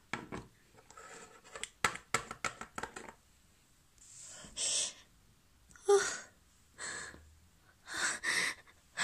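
Quick light taps and clicks of plastic toy ponies being moved across a wooden tabletop, then a few separate breathy gasps and sobbing breaths from a voice.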